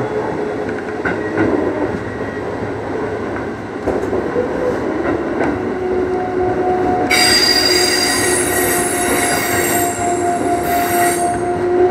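Keikyu 2000-series electric train running along the track, heard from the front cab, with a steady whine under the running noise. About seven seconds in a high-pitched wheel squeal starts suddenly as the train rounds a curve, and it stops about four seconds later.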